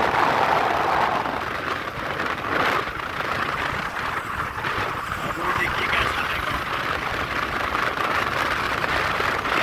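Motorcycle riding along a road: a steady rush of engine, tyre and wind noise.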